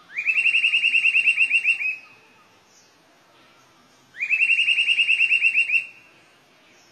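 A songbird singing two phrases, each a rapid run of about fifteen short rising notes lasting just under two seconds; the second phrase starts about four seconds in.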